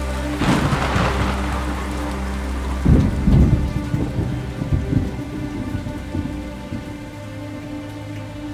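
Thunderstorm sound effect: a sharp thunder crack about half a second in, then rolling rumbles of thunder around three to five seconds, over steady rain.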